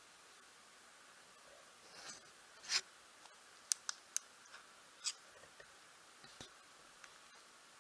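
Faint close handling noises: a few short soft rustles, a quick run of three small sharp clicks about four seconds in, and a light knock near the end.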